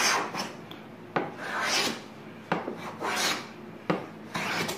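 Small wooden smoothing plane of maple and ipe, with a PM-V11 steel blade, taking shavings off a board of very hard ipe. Four strokes about a second and a half apart, each starting with a sharp click and running on as a rasping swish.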